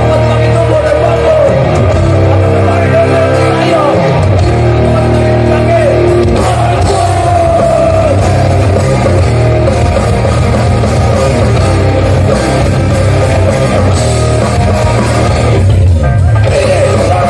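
Hardcore band playing live: loud distorted electric guitars, bass and drums, with shouted vocals.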